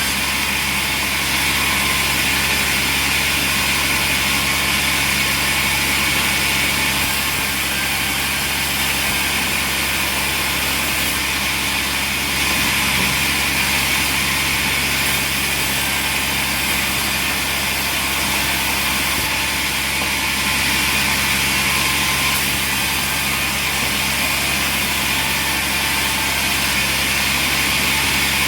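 Sawmill machinery running steadily: an even mechanical hum with a constant hiss, with no breaks or changes in pitch.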